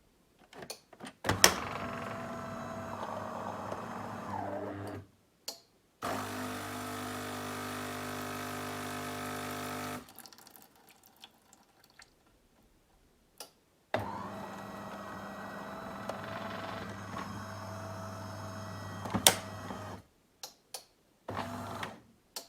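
De'Longhi automatic bean-to-cup coffee machine working through a brewing cycle: three stretches of steady motor and pump hum of a few seconds each, separated by clicks and short pauses. It runs without rattling or grinding, its brew-unit lift gearbox nut newly replaced.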